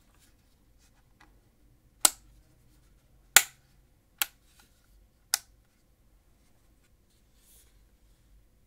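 Four sharp, separate clicks from a Nuphy Air96 keyboard (aluminium frame, ABS bottom case) being handled, irregularly spaced about a second apart, with a few faint ticks in between.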